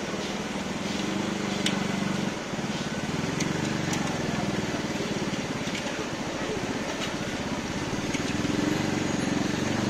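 Street-stall ambience: people's voices and passing traffic over a steady hiss, with scattered sharp clicks of metal scoops stirring chestnuts and hot stones in the steel roasting pans.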